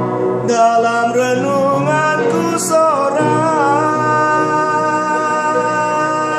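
A man singing a slow song in Indonesian, drawing out a line without words: the pitch slides and wavers for the first few seconds, then settles into a long held note.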